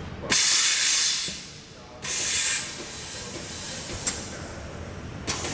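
Compressed air hissing from a Corghi tyre changer's Inflatron automatic inflation system in two strong blasts, the first about a second long and the second shorter a moment later, as it pumps the tyre toward its set 1.2 bar. A sharp click follows about four seconds in and another near the end.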